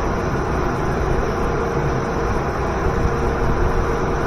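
Waterfall pouring, a steady rushing roar, with a faint steady tone running alongside.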